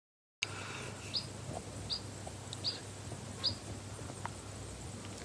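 Outdoor ambience with a bird's short high chirps, repeated about every three-quarters of a second, over a faint steady low hum.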